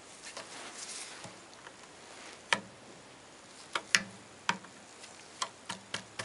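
A nail scraping and clicking in a hole in a cello's wooden top as it pries a pushed-in chip of the top back up: a soft scraping about a second in, then a string of sharp irregular clicks in the second half.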